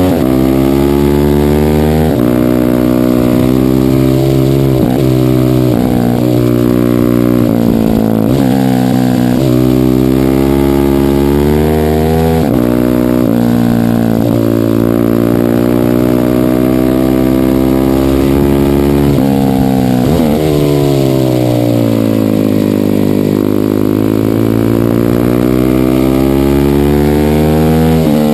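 Racing minibike engine heard from on board at full race pace, its pitch climbing and dropping again and again as the throttle is opened out of corners and closed into them, with a long slow dip and climb near the end. Wind rushes over the onboard microphone throughout.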